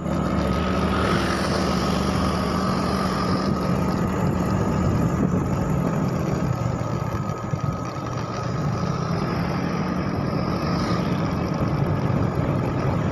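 A small motor scooter's engine running steadily while riding, with a low hum and a thin, higher steady tone above it, over a constant rush of wind and road noise.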